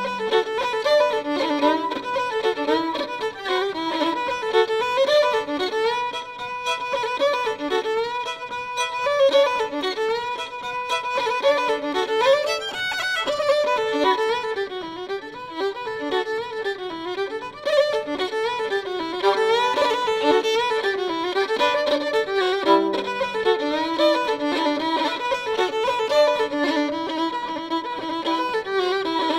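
Background music: a quick instrumental tune led by a fiddle.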